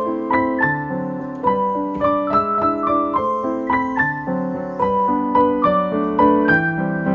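Background music: a piano-like keyboard melody of short, evenly struck notes over sustained chords.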